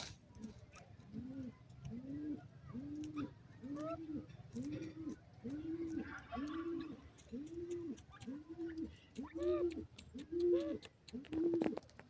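Grey francolin (dakhni teetar) giving a steady series of soft, low, arched call notes, about three every two seconds, with a few higher rising notes mixed in and scattered light ticks.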